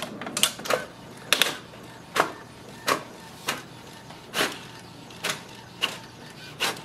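Brother MFC-J1012dw inkjet printer printing a page: its print mechanism makes a run of short mechanical swishes and clicks, about one every half second to second, over a faint steady hum.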